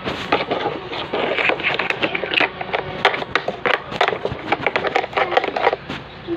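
Hand rubbing, scraping and tapping on the hard plastic body of a ride-on toy car, a quick irregular patter of small clicks and scuffs.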